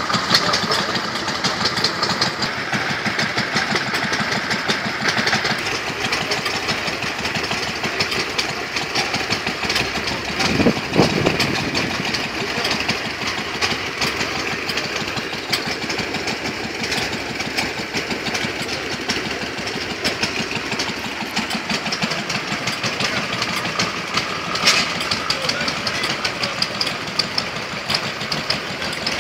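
Several vintage single-cylinder stationary engines running at once, a dense, steady patter of exhaust beats and knocks, with a brief louder burst about eleven seconds in.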